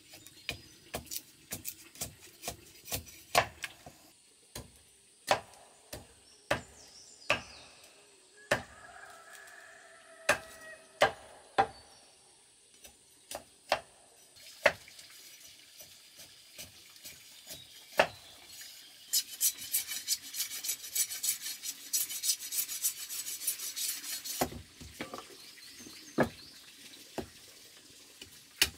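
Machete chopping and splitting bamboo on a wooden block: irregular sharp knocks, with about five seconds of rapid scraping about two-thirds of the way through as the blade is drawn along the bamboo.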